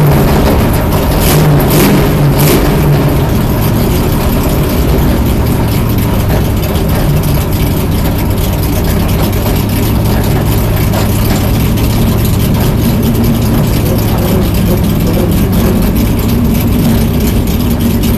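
Stock car's V8 engine running slowly and steadily with a constant low drone, loud inside the cockpit as the car rolls at low speed on pit road.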